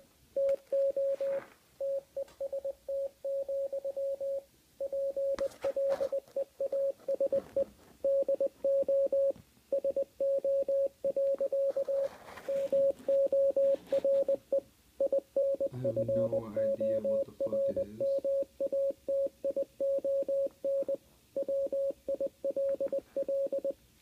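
Beeping from a television's speakers: one steady mid-pitched tone keyed on and off in irregular short and long beeps, like Morse code.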